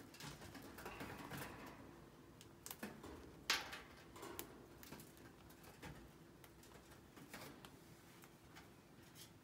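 Chinchillas chewing lupin seeds: faint, irregular dry clicks and crunches, with one sharper crack about three and a half seconds in.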